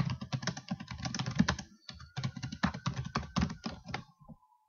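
Typing on a computer keyboard: a quick run of keystrokes with a short pause about two seconds in, stopping shortly before the end.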